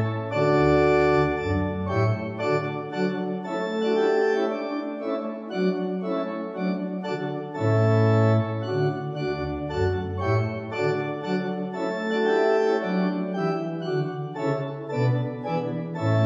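Organ music: slow-moving held chords over a deep bass line, changing every second or two.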